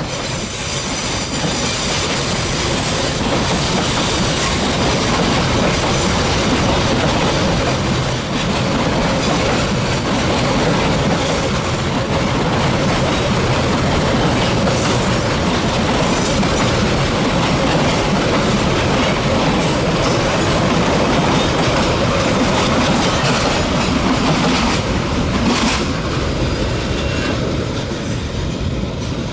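Limestone freight train's hopper cars rolling past, a steady heavy rumble of wheels on rail that eases off near the end as the last car goes by.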